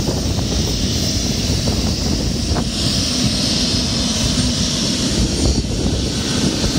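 Convair 580's two Allison turboprop engines running with propellers turning: a loud, steady propeller and engine sound with a high turbine hiss that grows stronger for a few seconds in the middle.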